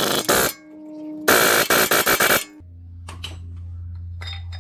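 1/2-inch impact wrench running the axle nut on, in two rapid hammering bursts: one stops about half a second in, the other runs from just over a second to about two and a half seconds. A low steady hum with a few faint clicks follows.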